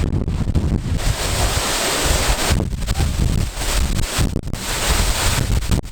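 Strong wind and spray buffeting the microphone over the steady rush of a large waterfall close by, with a deep rumble; the noise dips briefly twice.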